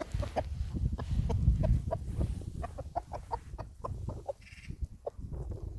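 Chickens clucking, many short clucks several a second, over a low rumble that is loudest in the first couple of seconds; one brief higher call about four and a half seconds in.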